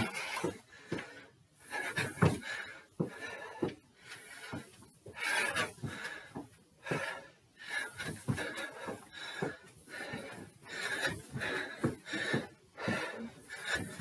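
A man panting hard from exertion, breathing in and out roughly once a second, with footfalls on stairs.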